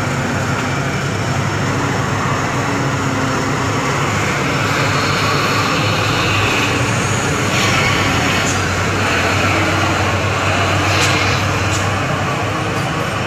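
Heavy diesel trucks and a container semi-trailer passing close one after another, their engines droning steadily under load with tyre and road noise.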